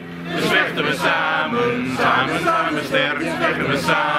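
A crowd of demonstrators chanting a slogan together, many voices in a repeating rhythm.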